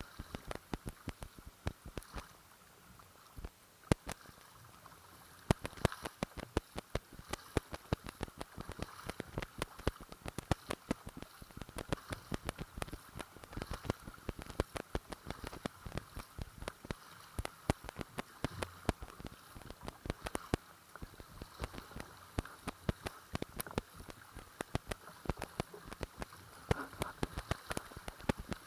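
Water slapping and splashing against the hull of a folding Oru kayak under way: a dense, irregular run of sharp splashes and ticks over a steady wash of water.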